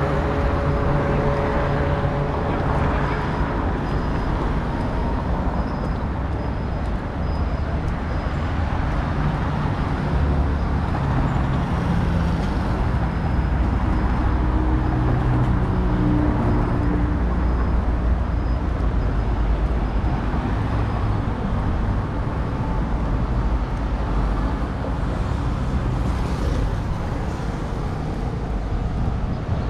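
City street traffic: motor vehicles running and passing on the road beside the pavement, a steady roadway hum with engine notes that come and go.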